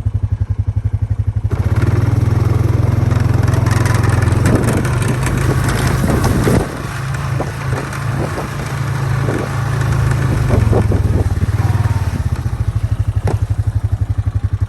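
A small vehicle engine putters at idle. About a second and a half in it pulls away and runs harder for about ten seconds, with rattling over rough ground, then settles back to a steady idle near the end.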